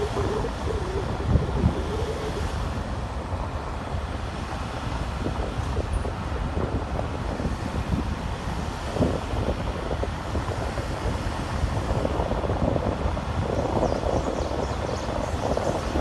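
A vehicle driving along a narrow paved road: a steady rumble of tyres and engine with some wind noise.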